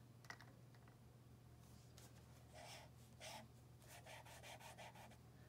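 Faint scraping strokes of a small metal knife spreading fountain pen ink across notebook paper, several short strokes in the second half, over a low steady hum.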